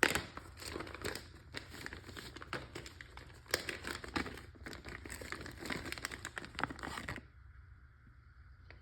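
Crinkling and rustling of packaging being handled, with scattered sharp clicks, stopping about seven seconds in.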